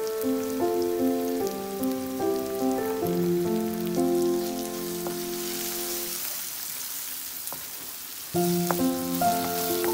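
Background music, a melody of held notes, drops out about six seconds in and comes back sharply about eight and a half seconds in. Underneath, sliced onions, tomato and spices sizzle in a frying pan as a wooden spatula stirs them; the sizzle is plainest while the music is gone.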